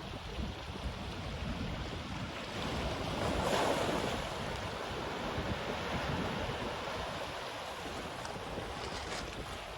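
Ocean surf washing onto a black sand beach, one wave swelling and breaking about three and a half seconds in, with sea wind buffeting the microphone throughout.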